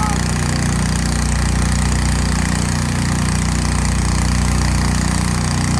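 An engine idling steadily at a constant low pitch, with no revving.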